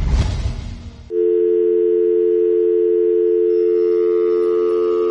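A burst of rumbling noise for about a second, then a steady telephone line tone, two close low notes held at an even level for about four seconds and cut off abruptly: the tone after a phone call ends.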